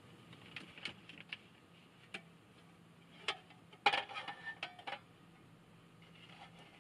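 Metal cookware handled on a cassette gas stove: a few light clicks, then a dense clatter of metal knocks with a brief ring about four seconds in as a pan is set on the stove's trivet. A faint low hum runs underneath.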